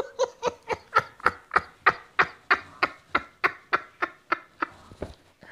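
A man laughing hard in a long run of short, breathy laugh pulses, about three or four a second, growing weaker near the end.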